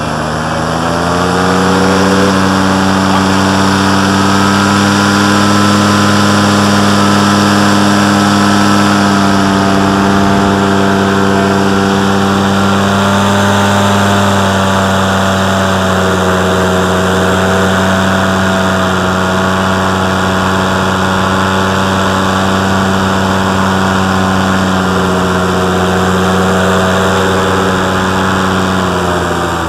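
Tandem paramotor's engine and propeller running loud and steady in flight. The pitch climbs in the first second or two, holds level with a slight easing about halfway, and drops off near the end as the throttle comes back.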